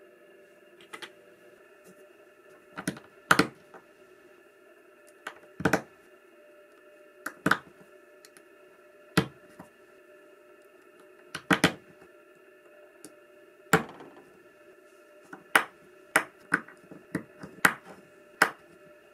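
Irregular sharp clicks and taps, about fifteen of them, some in quick pairs or clusters, over a faint steady hum.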